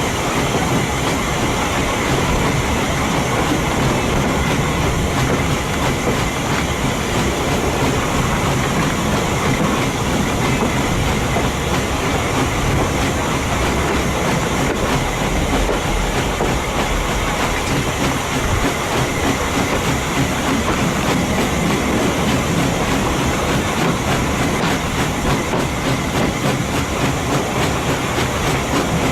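Train carriage rolling steadily along the track at about 15 mph, heard from aboard: a continuous rumble with the clickety-clack of wheels over the rail joints.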